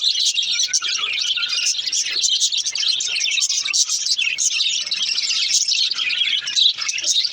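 A pair of budgerigars chirping and warbling without pause, a dense stream of quick, high chirps.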